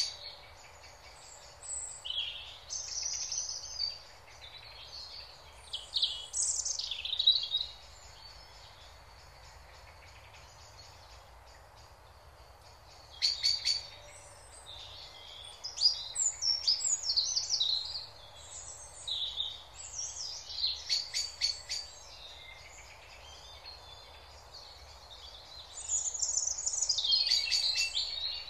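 Songbirds singing and chirping in repeated bursts of short high phrases and fast trills, with quieter gaps between, over a faint steady background hiss.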